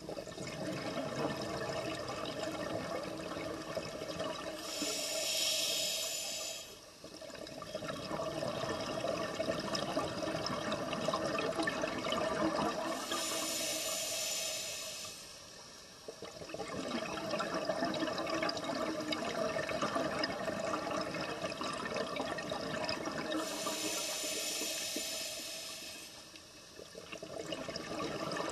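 Scuba diver breathing through a regulator underwater. About every nine or ten seconds there is a hiss of inhalation lasting about two seconds, followed by a longer stretch of bubbling exhalation.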